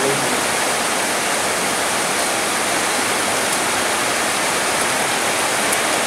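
Steady rain falling on palm trees and foliage, an even unbroken hiss.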